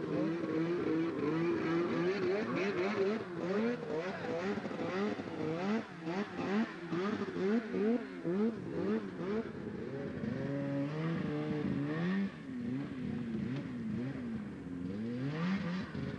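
Two-stroke snowmobile engines revving up and down over and over, the pitch rising and falling about once a second, at times with two engines heard together.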